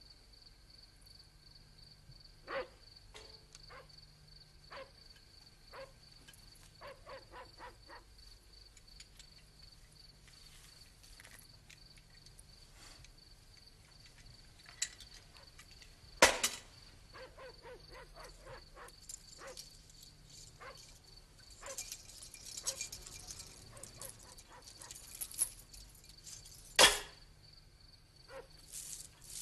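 A dog barking intermittently, in short scattered barks, under a steady faint high pulsing tone. Two sharp loud knocks stand out, one about halfway through and one near the end.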